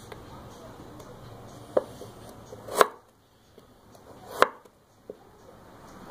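Chef's knife slicing a raw carrot on a wooden cutting board: a few separate cuts, each a short crunch through the carrot ending in a sharp knock of the blade on the board, three loud ones about a second apart and a fainter one near the end.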